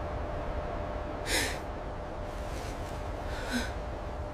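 A large ape breathing heavily: a sharp breathy exhale about a second in and a softer one near three and a half seconds, over a steady low rumble.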